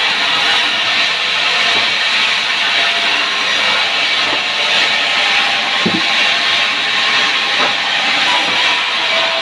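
Powered wood saw running steadily as it cuts wood, a loud continuous hissing whine, with a brief knock about six seconds in.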